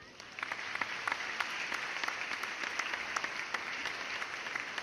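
Crowd applause: a dense patter of many hands clapping that starts suddenly just after the start.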